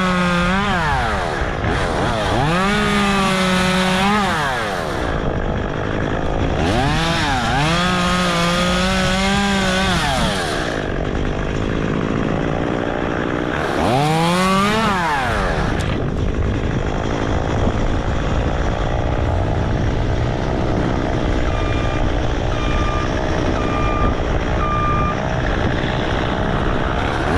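Chainsaw cutting branches, revved up to full speed four times and easing off between cuts, then running steadier and lower. Four short, high beeps sound near the end.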